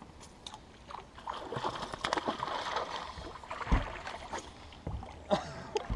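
Hooked smallmouth bass thrashing and splashing at the water's surface on the line, with two dull thumps near the end.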